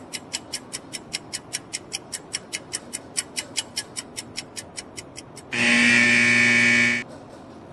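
Countdown-clock sound effect ticking quickly, about five ticks a second, then a loud buzzer held for about a second and a half as the countdown runs out.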